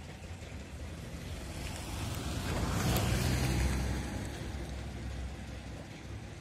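Wind and engine noise of a moving two-wheeler ridden across a steel bridge, with wind rushing over the microphone. It swells to a louder rush about three seconds in, then fades back.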